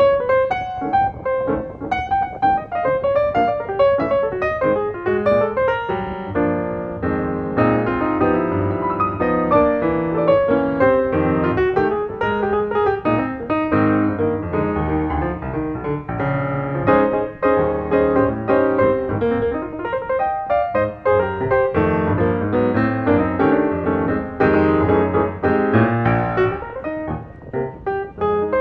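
Background piano music: a steady run of melody notes over held lower notes.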